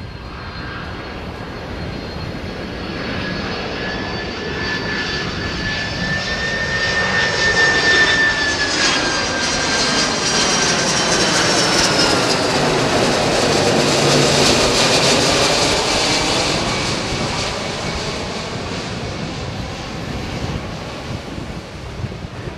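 Boeing 767-300 twin-jet airliner on final approach flying low overhead: jet engine noise with a high whine that builds, is loudest as the plane passes over in the middle, then drops in pitch and fades as it moves away.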